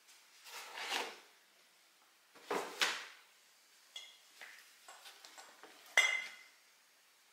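Packaging being handled: cardboard boxes sliding and scraping against a shopping tote bag as they are lifted and shifted, in two rustling swells, then a few light clicks and one sharper knock that rings briefly about six seconds in.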